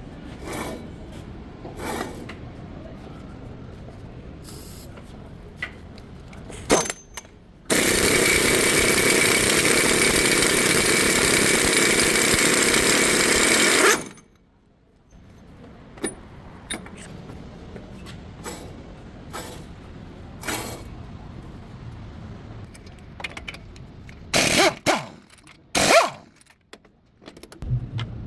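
Workshop tool sounds during a front wheel bearing job: scattered metallic clicks and knocks, and a power tool running steadily for about six seconds, the loudest sound. A few sharp knocks come near the end.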